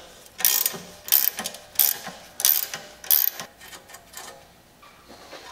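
Hand ratchet wrench worked back and forth in about five quick strokes, each a burst of clicking, backing off a rusted exhaust nut that has just broken loose. The strokes stop a little over three seconds in.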